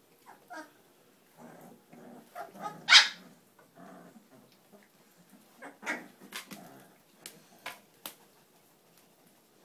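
Cane Corso mix puppies, about three weeks old, making short, high yips and whimpers, with one loud sharp yelp about three seconds in and a few short clicks near the end.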